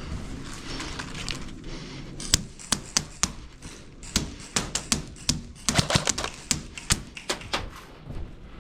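Airsoft guns firing single shots: a string of a dozen or more sharp cracks at an irregular pace, starting about two seconds in and thinning out near the end.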